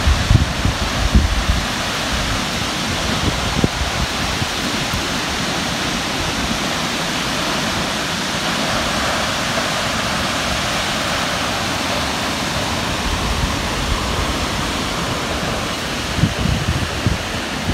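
Steady rushing roar of a waterfall, Gartmore Falls, crashing down a rock face into a reservoir. Low wind buffeting on the microphone comes in about the first second and again near the end.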